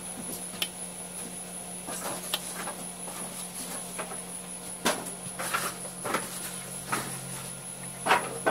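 Small clicks and knocks of a hand tool and metal parts being handled in a Laguna lathe's headstock as its little screws are tightened, about eight at irregular intervals with the loudest near the end, over a steady low hum.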